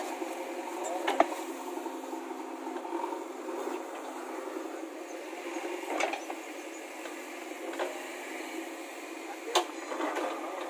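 JCB 3DX backhoe loader's diesel engine running steadily while the backhoe digs, with three sharp knocks from the bucket and arm working soil and stones: about a second in, about six seconds in and near the end.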